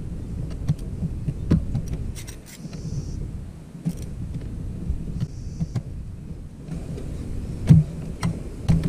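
Hand tools working metal bolts on a SeaStar hydraulic steering cylinder: a torque wrench and a second wrench being ratcheted and set on the bracket bolts, giving scattered sharp metallic clicks and clinks, some in quick runs. A steady low rumble runs underneath.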